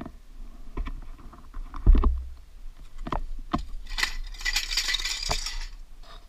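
Handling noise from a body-worn action camera and the rider's gear while walking up to a dirt bike: scattered clicks and knocks, a heavy thump about two seconds in, and a rustling hiss for a second or two later on. The bike's engine is not running.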